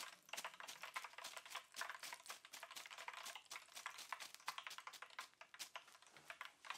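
Hot deep-frying oil in a small pan crackling faintly around loose bits of batter: a dense, irregular run of small pops.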